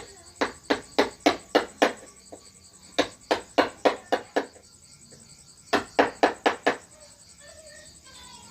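Wood carving: a mallet striking a carving chisel in three runs of quick, sharp knocks, about three a second, with short pauses between the runs.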